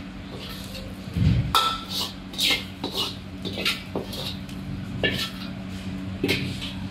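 Metal ladle scraping and knocking against a steel wok as food is scooped out, a string of sharp clinks and scrapes with a dull thump a little over a second in, over a steady low hum.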